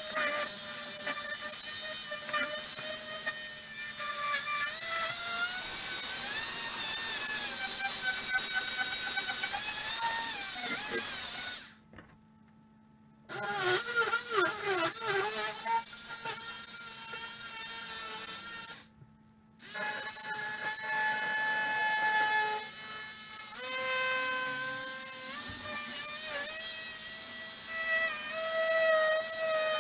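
Ridgid oscillating multi-tool with a fine-tooth blade cutting into the drywall behind the backsplash: a steady high whining buzz whose pitch wavers as the blade bites. It stops briefly twice, about twelve seconds in for just over a second and again around nineteen seconds for under a second.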